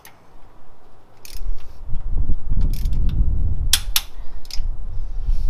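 Click-type torque wrench being ratcheted and pulled on an LS1 cylinder head stud nut, tightening ARP head studs on the 50 ft-lb pass: several sharp clicks, the loudest a little under four seconds in, over a low rumble that starts about a second in.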